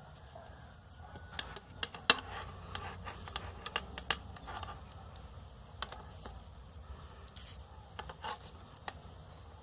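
Knitting needles clicking and scraping against each other with yarn rubbing as stitches are worked by hand in a knit-one, purl-one rib. Irregular light clicks and taps, the sharpest about two seconds in.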